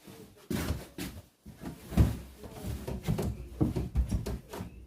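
Wooden winder treads being handled and worked into place on a stair: irregular knocks and scrapes of wood on wood, with the loudest knocks about two seconds in and near four seconds.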